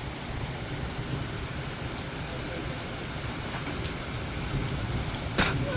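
Heavy rain pouring steadily, with a low rumble of thunder beneath it. A single sharp click comes near the end.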